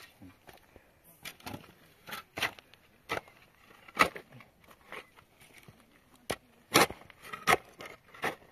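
About a dozen irregular sharp clicks and knocks, like objects being handled and set down, the loudest about four seconds in and again near seven seconds.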